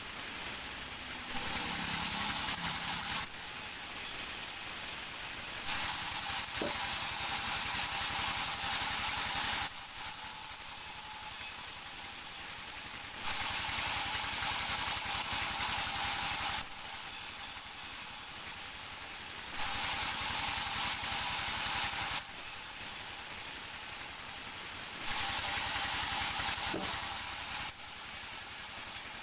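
Sawmill machinery running steadily, with a loud hiss that comes and goes in stretches of about three to four seconds, five times over.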